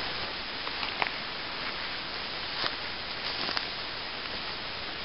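Steady rushing hiss of a woodland stream, with a few light crackles of footsteps through dry leaf litter as someone walks up.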